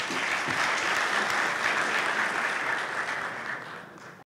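Audience applauding, thinning out near the end and then cutting off abruptly.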